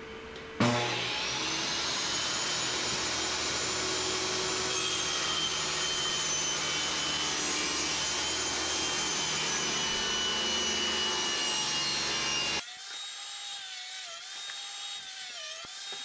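Portable table saw starting up, its motor whine rising to speed, then running steadily while the edge of a wooden planter box is fed past the blade, tilted for a 7-degree back cut. The saw sound stops abruptly about twelve seconds in, leaving a quieter wavering hum.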